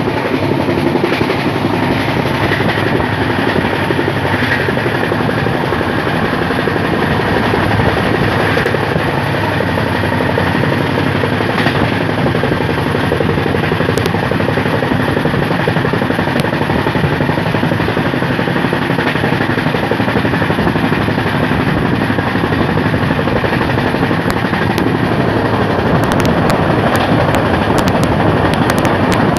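A passenger train coach running at high speed, heard from its open doorway: a loud, steady rush and rumble of wheels on rail, with a few sharp clicks near the end.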